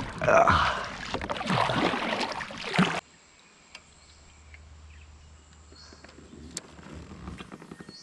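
About three seconds of loud splashing and rustling around a kayak, which cuts off abruptly. Quiet creek-side ambience follows, with a low steady hum and a few faint clicks.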